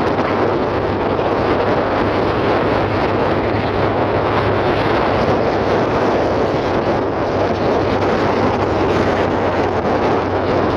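BMW Z3 on the move at a steady speed: the engine runs at an even pitch under a continuous rush of wind and road noise.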